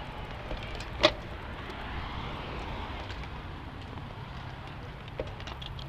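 Steady wind and road noise of a bicycle being ridden, with one sharp click about a second in.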